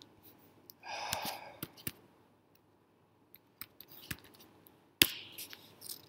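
Hardcover book being handled: a soft rustle about a second in, a few small clicks and taps, and a sharper click and rustle near the five-second mark as the book is brought back up.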